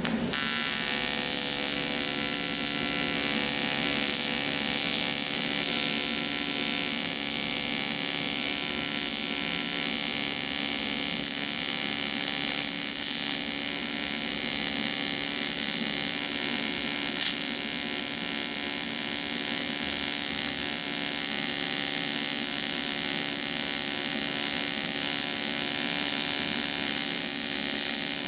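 Electric welding arc on aluminum, a steady buzzing hum over a hiss that runs without a break.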